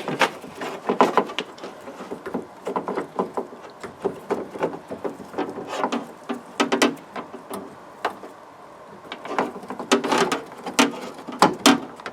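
Irregular clicks, taps and knocks of metal lock rods and plastic clips being handled and fitted inside a van's rear door, with a short quieter stretch a little past the middle.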